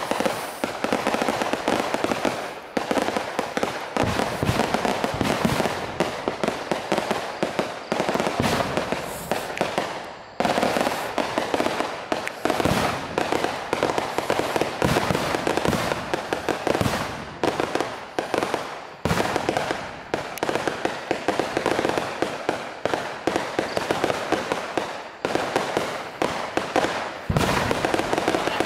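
A long string of firecrackers (petasan) hanging beneath a Ponorogo hot-air balloon going off in rapid, continuous crackling bangs, with brief lulls every few seconds.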